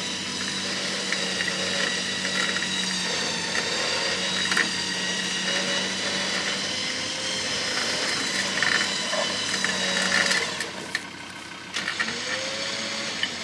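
Vehicle winch motor running under load, a steady motor whine as it drags a buried piece of rubbish out of the dirt, with a few knocks. The winch stops about ten and a half seconds in, leaving a quieter engine idle.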